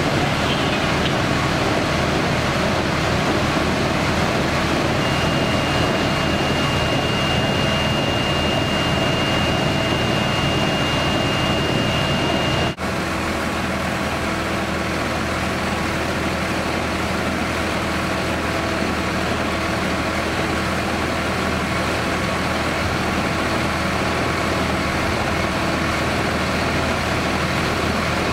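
Steady drone of parked fire engines' diesel engines idling, with a thin high steady tone over it for several seconds in the first half. The sound drops out for an instant about halfway through, then the engine drone carries on.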